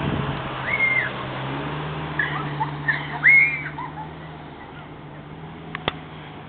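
Pickup truck engine running with a steady low hum as it drags a Christmas tree used as a sled, growing fainter after about four seconds as it pulls away. A few short, high-pitched whistle-like cries sound over it in the first half.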